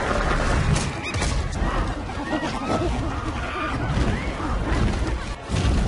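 Film action sound mix: deep rumbling with several heavy crashes, about a second in and again near the end, and short high animal cries over it.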